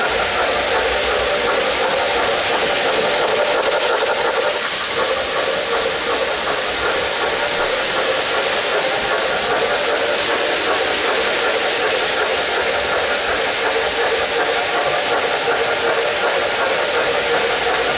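Steady rolling noise of an O-gauge model freight train on three-rail tubular track, its metal wheels running on the rails. The MTH Santa Fe 2-10-4 Texas steam locomotive's ProtoSound 2.0 steam sound effects play along with it.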